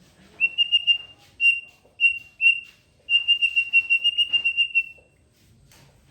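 Songbird singing: clear, high whistled notes at a steady pitch in short bursts, then a rapid run of about six notes a second from about three seconds in.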